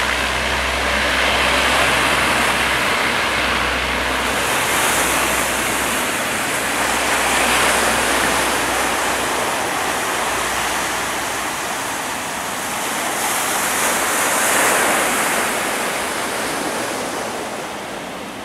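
Transall C-160's two Rolls-Royce Tyne turboprop engines at takeoff power during the takeoff roll, a loud steady rushing noise that fades slowly near the end as the aircraft moves away.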